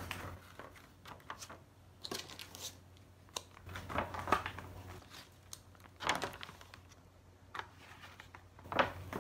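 Faint crinkling and rustling of a Peyang Peta Max cup noodle's foil lid being pressed shut and a plastic soup sachet being laid on top of it, in short separate rustles a second or two apart.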